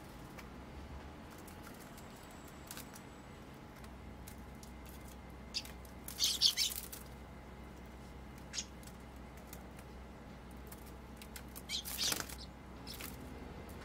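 Eurasian tree sparrows' wings fluttering as they land and scuffle on a woven bamboo tray: two loud bursts of wingbeats, about six and twelve seconds in, with a few single short sharp sounds between.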